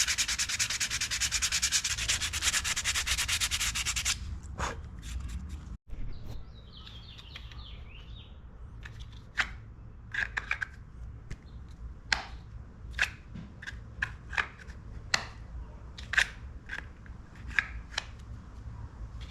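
Sandpaper rasping in fast, even strokes on a knife handle, taking it to a high grit for a smooth finish, stopping abruptly about four seconds in. After that come scattered sharp clicks and light taps.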